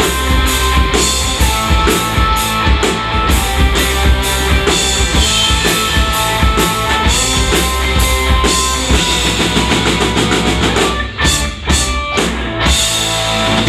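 Rock band playing live, with a prominent drum kit and bass drum under sustained instrument tones. Near the end the steady playing breaks into a few short, separate accented hits.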